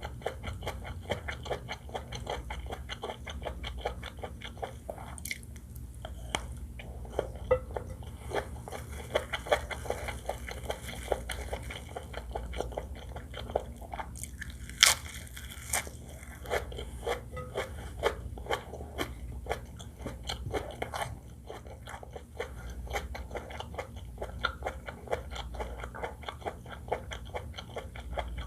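Close-miked chewing and biting of seafood fried rice with shrimp, crab and squid: a dense run of small wet clicks and crunches, with one louder sharp click about fifteen seconds in. A steady low hum runs underneath.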